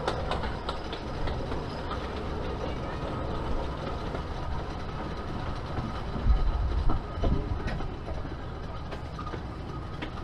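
Kurobe Gorge Railway trolley train running on its narrow-gauge track, heard from an open-sided car: a steady rumble and rattle of wheels on rails with scattered clicks, and a heavier low rumble a little past the middle.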